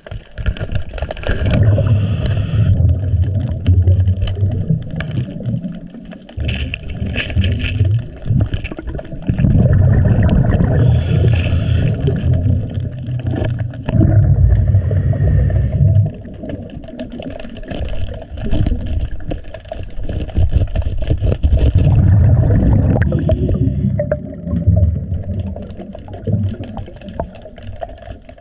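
Scuba diver breathing underwater through a regulator: long low stretches of exhaled bubbles, each a few seconds long, with quieter gaps between breaths.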